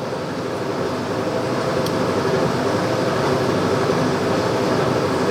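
Steady mechanical hum of running machinery with faint steady tones, slowly growing a little louder.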